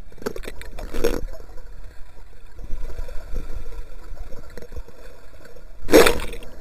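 Muffled swimming-pool water heard through a submerged action camera, with splashing as it goes under in the first second. About six seconds in comes a loud splash as it breaks the surface.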